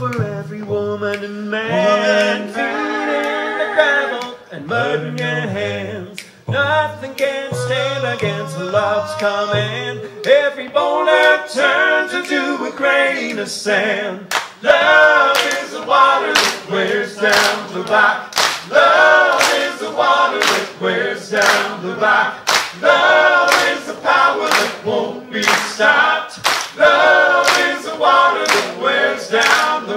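Three men singing a cappella in close harmony. From about a third of the way in, steady hand claps keep time on the beat, about two a second, growing stronger after the midpoint.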